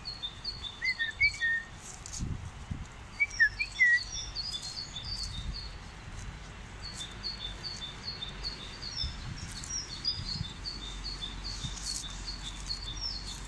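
Songbirds singing: a rapid, steady run of repeated high chirps, with a few lower whistled notes in the first four seconds. A few low thumps come about two to four seconds in.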